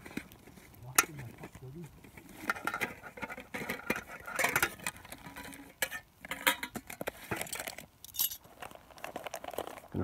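Stainless steel camping pot's lid lifted off with a metallic clink, followed by scattered clinks and rustling as the things packed inside the pot are handled.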